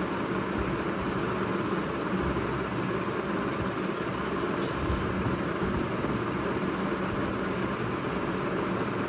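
Steady background hum and hiss, even in level throughout, with a couple of faint clicks about halfway through.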